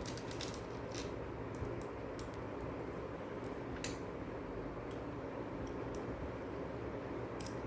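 Light metal clicks and clinks, scattered and irregular, as a metal construction-kit bolt is turned with a nut driver and its nut and perforated strips are handled, over a steady low background hum.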